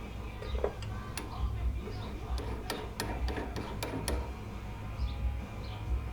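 A quick cluster of sharp clicks and taps for about three seconds in the middle: a drill bit being swapped out of a drill press chuck for a smaller one.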